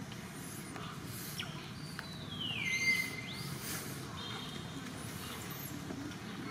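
A monkey gives one high-pitched cry about two and a half seconds in that falls in pitch and then holds level for about half a second, over a steady low background noise with a few faint short high calls.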